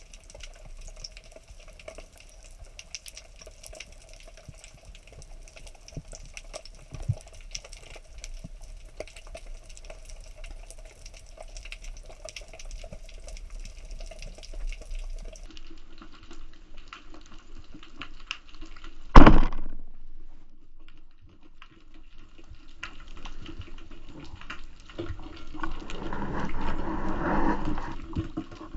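Underwater sound through a camera housing: faint steady crackling and a low hum. About two-thirds of the way in, one loud sharp bang as the speargun fires, and near the end a louder rough rustling and churning as the speared fish fights on the line.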